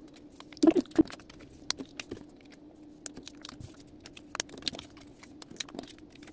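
Photocards and their packaging being handled: scattered light clicks, taps and rustles, with a brief murmur of a voice under a second in.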